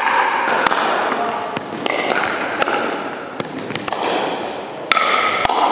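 Pickleball being played in a gymnasium: a string of sharp hits of paddles on the plastic ball, ringing in the hall, with players' voices in the background.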